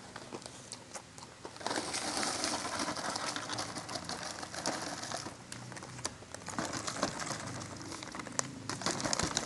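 Plastic snack packaging crinkling and rustling as it is handled, loudest for about three seconds from roughly two seconds in, with scattered sharp crackles.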